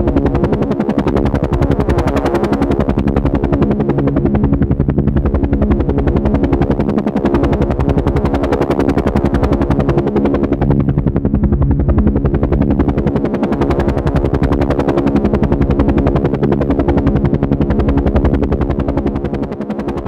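Helicopter running, with steady, rapid rotor-blade chop over a low steady hum; the sound starts to fade near the end.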